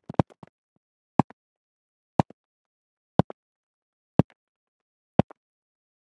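Footsteps of hard-soled loafers on a hard floor. A quick flurry of steps comes at the start, then slow, evenly spaced steps about one a second, each a sharp click with a fainter tap just after it.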